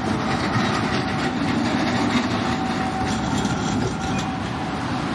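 Zurich Tram 2000 street trams rolling past on grooved street track: a steady rumble of steel wheels on the rails, with a few clicks as the wheels run over rail joints about three seconds in.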